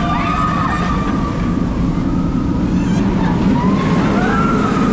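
Inverted roller coaster train rumbling along its track, with riders screaming in long, wavering cries that rise and fall, one near the start and another about four seconds in.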